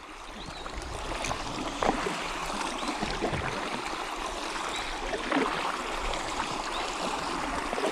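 Kayak paddle strokes in river water: steady trickling and splashing as the blades dip and drip, with a few slightly louder splashes.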